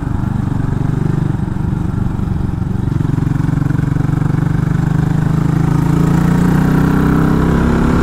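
Geon Scrambler 250's single-cylinder engine running under way, its pitch rising gradually through the middle as the motorcycle speeds up, then holding steady near the end.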